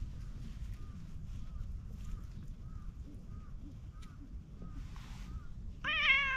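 Orange tabby cat meowing once, loudly, near the end: a single wavering call lasting under a second. Before it, only faint short chirps repeating about twice a second over a low rumble.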